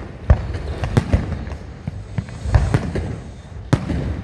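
Fireworks exploding overhead: a quick series of sharp bangs, several a second at times, each trailing off in a low rumbling echo.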